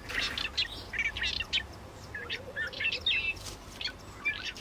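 Cape robin-chat calling: a string of short, high chirps and quick warbled notes, some of them curling up and down in pitch.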